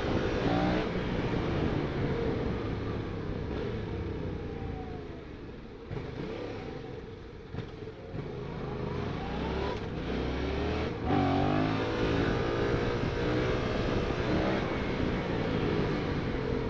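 Yamaha MT-07 parallel-twin motorcycle engine revving up and easing off through the gears on the move. It goes quieter for a couple of seconds around six to eight seconds in, then pulls hard again about eleven seconds in.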